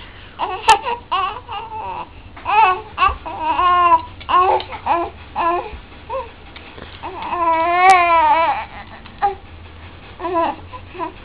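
Baby cooing and babbling in short happy bursts, with one long wavering squeal about seven seconds in.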